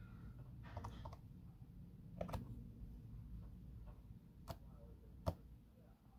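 A few faint, irregularly spaced clicks of metal tweezers tapping against a small pot of red food-colouring gel as dabs of gel are picked out.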